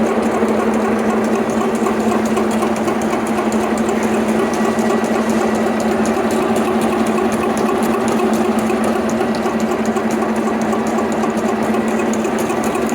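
Milling machine cutting metal steadily: a constant hum with a fast, even rattle from the cutter.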